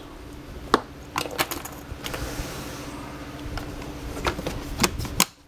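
Handling noise from a plastic battery box as its lid is fitted back on: a scatter of sharp clicks and knocks, several close together, over a faint steady hum.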